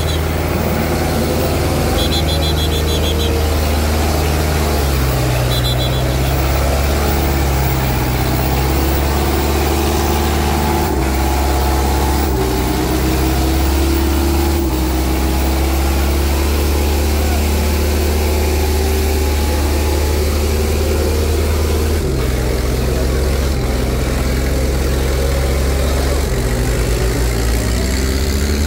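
Tractor diesel engines running loud and steady, the engine pitch stepping up and down every few seconds.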